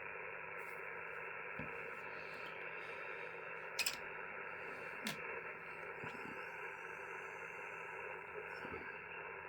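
Steady hiss of receiver band noise from an ICOM IC-705 transceiver's speaker, with two short clicks about four and five seconds in.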